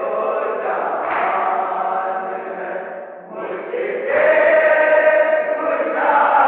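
Men's voices chanting an Urdu nauha, a Shia lament, unaccompanied and in a slow melody with long held notes, on an old, muffled recording. The chant dips briefly about three seconds in, then comes back louder on a held note.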